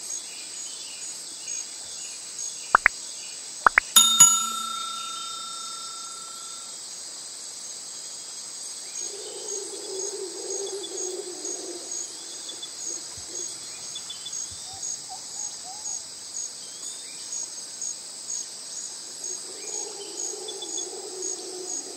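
Crickets chirring steadily in a high, even pulsing trill. A little after three seconds in come two sharp clicks and then a bright bell-like ding that rings out for about two seconds. A lower hum comes and goes twice.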